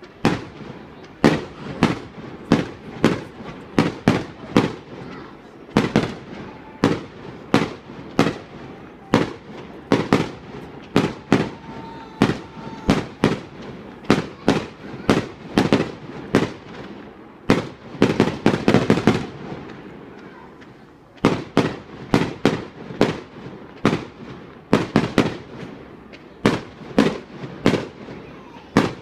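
Display fireworks bursting in a rapid, irregular run of sharp bangs, at times two or three a second. A quick rattle of bangs comes about two-thirds of the way through, followed by a brief lull.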